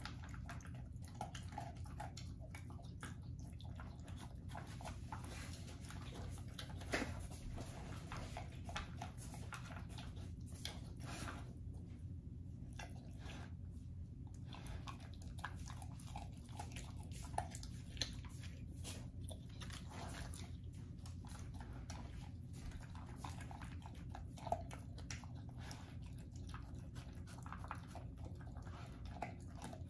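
English Bull Terrier eating dry kibble mixed with liver chunks from a stainless steel bowl: steady crunching and chewing, with a few sharper clicks, over a low steady background hum.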